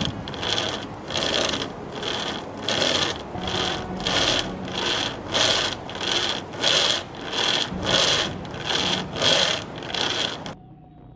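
A chainsaw chain pulled back and forth between two wooden stick handles, rasping through a standing sapling's trunk in steady strokes, about two a second. The sawing stops suddenly near the end.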